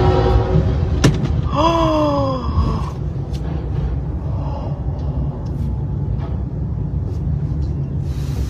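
Steady low rumble, with a train horn chord ending in the first half-second and a sharp knock about a second in. At about one and a half seconds, a person lets out a single gasping exclamation that falls in pitch over about a second.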